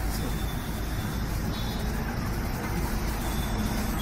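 Steady low rumble of railway locomotives at close range: a Nilgiri Mountain Railway steam locomotive moving slowly along a station platform, with a diesel locomotive standing alongside.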